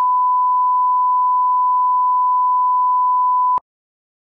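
Broadcast 1 kHz reference test tone that goes with SMPTE colour bars: one steady, unwavering beep that cuts off suddenly about three and a half seconds in.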